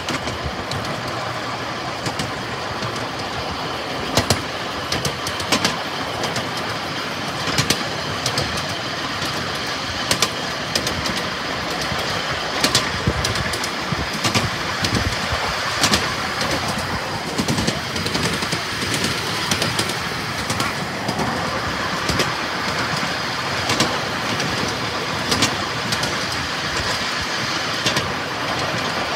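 Miniature railway train running along narrow-gauge track: a steady rumble of wheels on the rails, with sharp clicks every second or two as the wheels cross rail joints.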